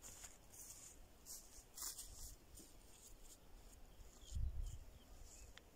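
Faint rustling and footsteps in bank grass, with short scratchy rustles scattered throughout and one brief low rumble about four and a half seconds in.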